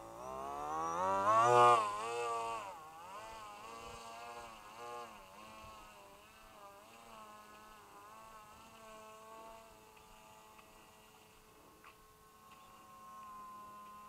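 Electric motor and propeller of a small RC flying wing buzzing: a whine that rises in pitch and peaks about a second and a half in, then wavers up and down in pitch and fades as the plane flies away.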